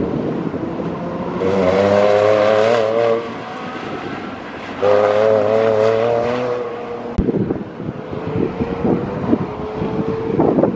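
Porsche 911 flat-six engine at high revs on an autocross run, two hard pulls of about two seconds each with a brief lift between. After a sharp click partway through, wind buffets the microphone over a distant engine.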